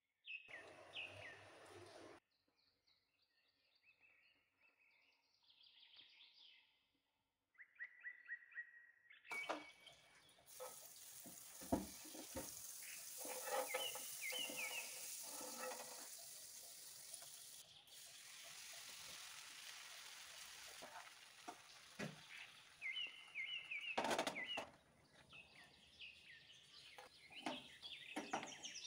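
Butter sizzling in a hot non-stick pan: a steady hiss that starts about a third of the way in, with scattered clicks and taps of utensils on the pan. Short chirps, like birds, sound faintly now and then.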